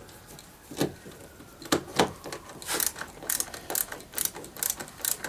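Phillips screwdriver tightening a door-panel screw back into the door, with a few sharp clicks and then a quick irregular run of ratchet-like clicking.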